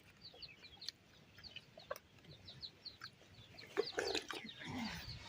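Domestic chickens clucking, faint, with many short high chirps and louder calls about four seconds in.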